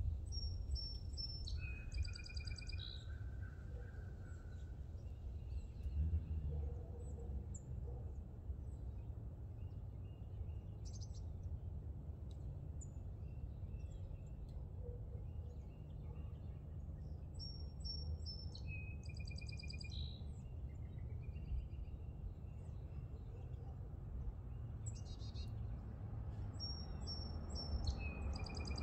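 A songbird singing the same short patterned phrase three times, high chirps followed by a lower trill. Beneath it runs a steady low outdoor rumble.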